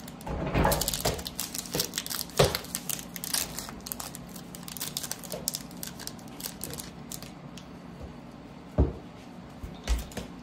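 Foil trading-card pack wrapper being torn open and crinkled by hand: a dense crackling that thins out after the first few seconds, with a few louder knocks.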